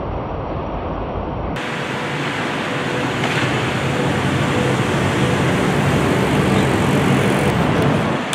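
Low traffic rumble, then from about a second and a half in, skateboard wheels rolling over stone paving in a steady rumble that builds a little toward the end.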